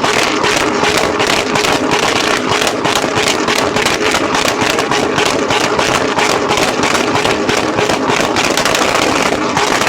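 A vehicle engine running loud and steady with a rapid, even pulsing.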